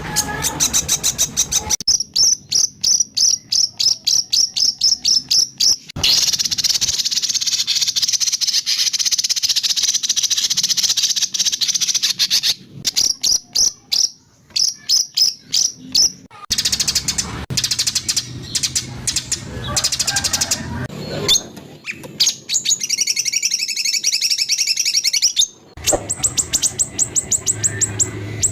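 Songbird recordings of harsh, rapid-fire chirps and dense high trills, repeated notes coming several times a second, spliced together with sudden cuts between phrases.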